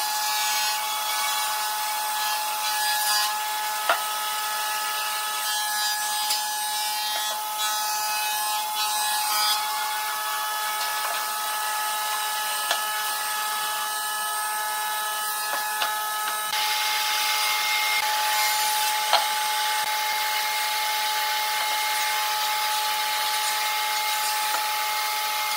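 Steady background noise with a faint hum running through it, a little louder from about two-thirds of the way through. A few light taps of a steel square and pencil on pine boards as they are marked out.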